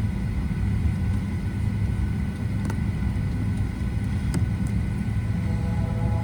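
Steady low rumble and hum inside the cabin of a Boeing 737-800 sitting at the gate, with a couple of faint ticks.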